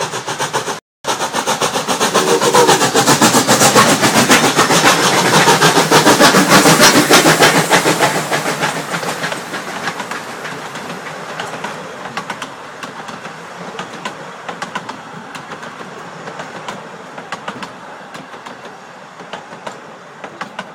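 Doubleheaded narrow-gauge steam train passing close by. The locomotives go past with rapid, even beats, loudest a few seconds in, then the coaches roll by with a rhythmic clicking of wheels over the rail joints that fades toward the end. There is a brief dropout in the audio about a second in.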